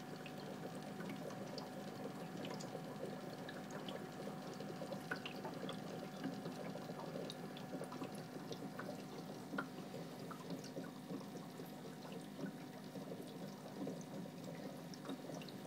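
Aquarium filter water bubbling and trickling steadily, with many small scattered pops and drips over a faint steady hum.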